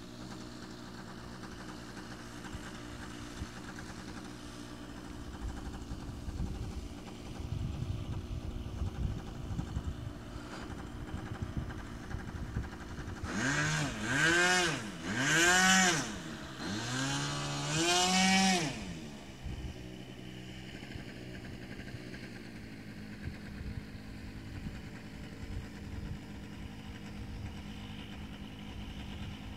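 RC model airplane's motor and propeller, rising and falling in pitch in three or four quick sweeps about halfway through, as it flies past and changes speed, over a steady low background.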